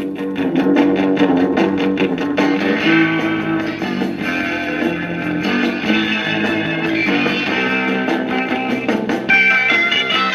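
Guitar-led music from a 45 rpm record playing through a 1957 RCA 8-EY-4DJ record player.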